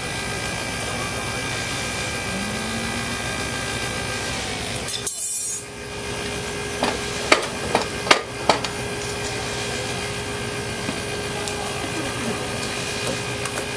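Steady hum of the hydraulic power feeding a rail weld trimmer as it shears the excess weld metal, still red-hot, off a freshly thermite-welded rail joint. It dips out briefly about five seconds in, and a few sharp metallic knocks follow about halfway through.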